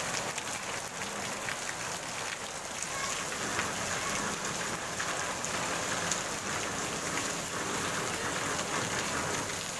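Heavy rain falling steadily on a flooded paved street, splashing into standing water.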